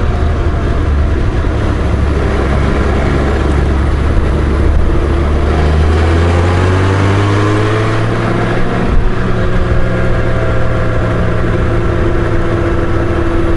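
Honda Goldwing GL1500's flat-six engine running at road speed, pulling up through the revs about halfway through and then holding a steady pitch, over a steady rush of wind and road noise.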